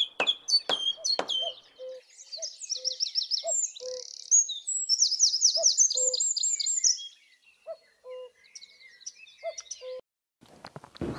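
Birdsong: small birds chirping and trilling, with a low two-note call, the second note lower, repeated every second or two. A few sharp knocks sound in the first second.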